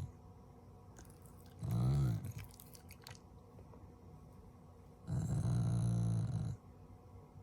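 Black Shiba Inu growling twice, a short rising-and-falling growl about two seconds in and a longer steady one near the end, with a few faint clicks around the first. It is the dog's habitual affectionate 'garugaru' growl at its family, not anger.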